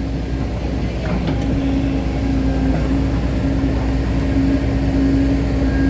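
Excavator's diesel engine running steadily: a low rumble with a steady hum over it, growing slightly louder.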